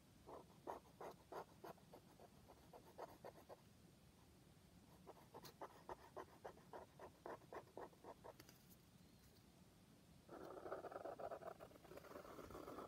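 Fine-tip pen scratching on paper: two runs of short quick strokes, about four a second, then one longer unbroken stroke near the end.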